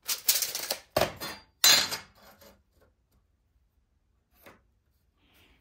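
Metal clattering as steel flat bar and tools are handled at a workbench: three sharp clanks in the first two seconds, then a faint tick near the end.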